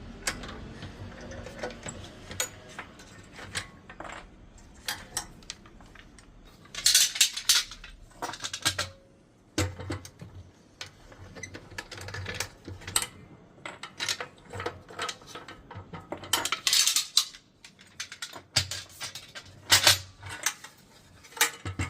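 Metal woodworking clamps being loosened and taken off a glued-up cabinet carcass: irregular clicks and knocks, with louder bursts of metallic clanking and rattling about 7, 12, 17 and 20 seconds in.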